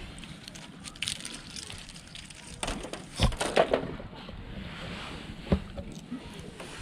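Handful of pine cones tossed into a metal fire pit onto burning firewood, knocking and clattering in a quick cluster about three seconds in. The wood fire crackles with scattered pops, one sharp pop near the end.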